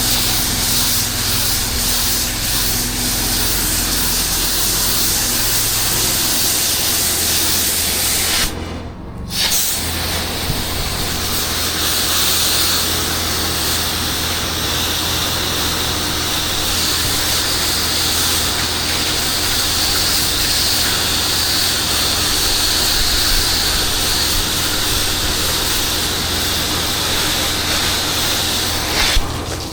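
Pressure-washer spray hissing steadily over the steady hum of the washing rig's motor as a cleaning treatment is sprayed on the house. The spray cuts out for about a second around nine seconds in, then resumes, and stops just before the end.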